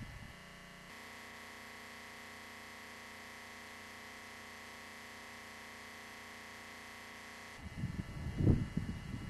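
A steady hum with hiss starts abruptly about a second in and cuts off abruptly near the end. Irregular low rumbling follows it.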